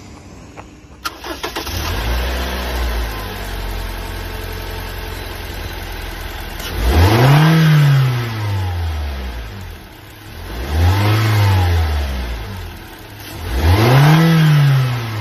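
Toyota Hiace's 1TR 2.0-litre four-cylinder petrol engine starting about a second in with a brief flare, settling to idle, then revved three times, each rev rising in pitch and falling back to idle.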